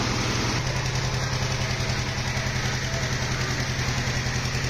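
An engine running steadily at idle: a constant low hum with a rapid, even pulse, over a steady hiss.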